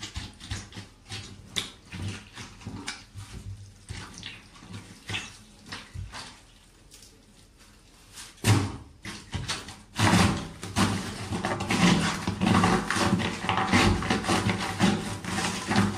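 Rubber boots stomping and squelching mashed wet food, with one heavy stamp about eight and a half seconds in. From about ten seconds in, louder, dense crunching as the boots crush fresh cabbage leaves.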